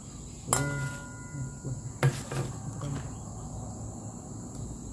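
Insects trilling steadily in the background, with two sharp clanks of kitchenware during the mixing of the larb: one about half a second in that rings briefly, and one about two seconds in, followed by a few lighter knocks.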